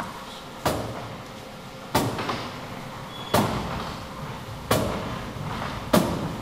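Slow, even percussion beat: a heavy drum-like hit about every 1.3 seconds, five in all, each ringing out and fading before the next.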